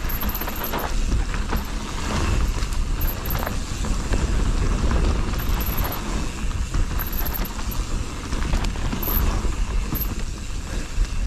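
Riding a mountain bike down a dry dirt trail: wind rushing over the microphone and tyres rumbling on the ground, with a few scattered knocks from the bike over bumps.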